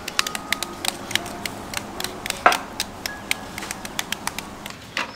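Small knives slicing young green bananas held in the hand, several people cutting at once: a quick, irregular run of sharp clicks, several a second.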